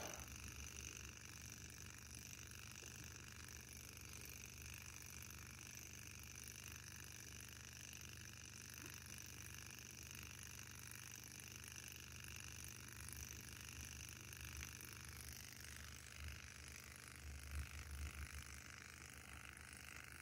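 Kontax Manson-type hot air engine, its piston coated in tungsten disulphide, running fast and very nearly silent: only a faint, steady low chuffing. There are a few soft low thumps near the end.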